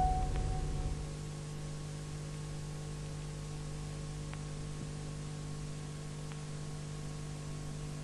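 A sustained musical tone fades out in the first second, leaving only a steady electrical hum and hiss in the recording.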